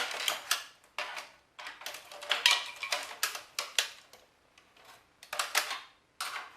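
Plastic clicking and clattering as the front panel of a Philips CD-i player is pulled at to pop it off, in several short bursts with quiet gaps between.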